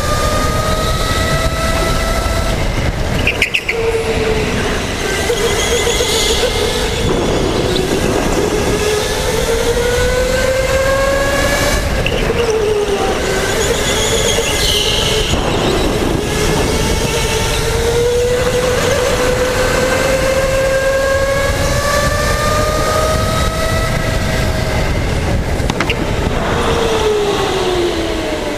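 Electric indoor go-kart's motor whining at speed on a lap, its pitch climbing slowly along the straights and dropping back when the throttle comes off for the corners, with a brief drop in level about three seconds in. Short high tyre squeals on the sealed concrete come through in some turns.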